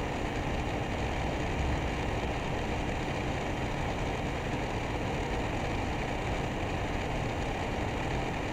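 Steady background hum and hiss with a faint steady low tone: room noise picked up by the microphone, with no distinct events.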